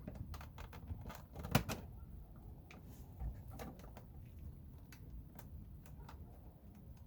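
Irregular clicks and metallic knocks of hand tools working the car door's fasteners, with the loudest knock about one and a half seconds in.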